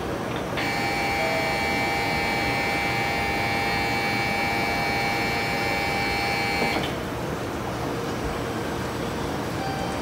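Steady electric ringing warning tone for about six seconds, the signal that the Shinkansen 700 series train's doors are about to close, stopping suddenly. The doors then slide shut.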